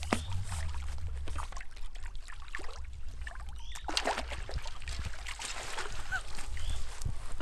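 A hooked fish splashing and thrashing at the water's surface as it is played in on a rod and drawn into a landing net, in a string of short irregular splashes.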